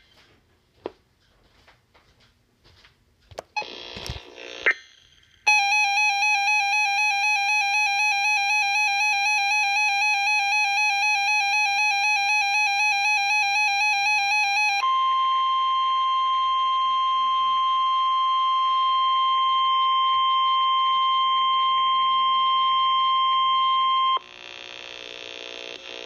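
NOAA weather radio receiver alerting on a warning: a few faint clicks and a short burst, then a loud warbling alarm tone for about nine seconds. It then switches to the steady 1050 Hz NOAA Weather Radio warning alert tone for about nine seconds, which cuts off suddenly.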